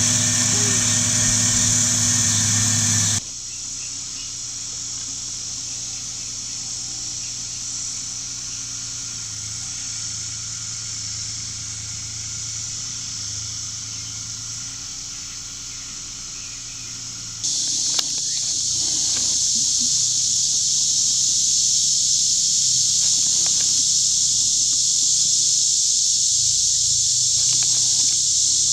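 Tractor pulling a round baler, running with a low steady hum, under a loud, steady, high-pitched insect chorus. The sound drops sharply about three seconds in and returns at full level about seventeen seconds in, with a few light knocks just after.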